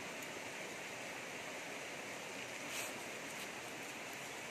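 Steady rushing of a shallow forest stream running over rocks, with one brief sharp rustling noise about three seconds in.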